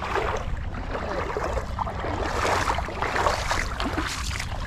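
Steady low wind rumble on the microphone, with a hiss of seawater and surf over it.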